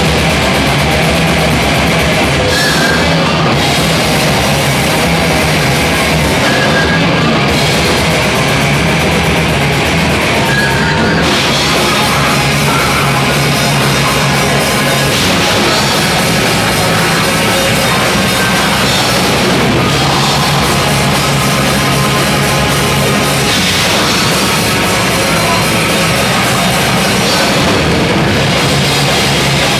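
Loud rock music, heavy and continuous, with a full drum kit.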